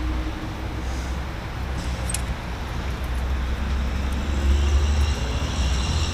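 Steady low rumble of road traffic, swelling about four seconds in.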